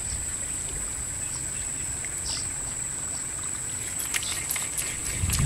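Steady high-pitched drone of insects in the marsh vegetation, over a low rumble, with a few faint ticks near the end.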